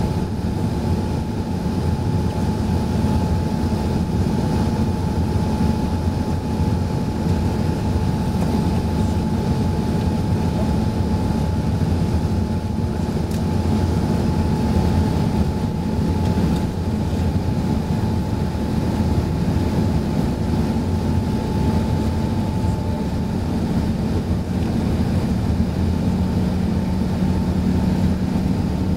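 Airbus A380 cabin noise during the climb after takeoff: the wing engines and the air rushing past make a steady low rumble heard from a seat beside the engines. A thin steady whine fades out about three-quarters of the way through as a lower hum comes in.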